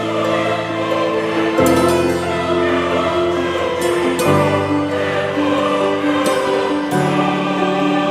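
Slow background music of long held chords, changing about every two to three seconds.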